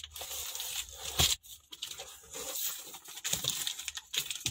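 Cardboard box being opened by hand and plastic-wrapped bumper guards slid out: irregular scraping and rustling of cardboard and plastic, with one sharp knock about a second in.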